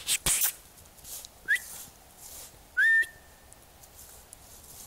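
A person whistling twice to call a puppy: a short rising whistle, then a louder one that rises and holds its note briefly. A few brief rustling noises come just before.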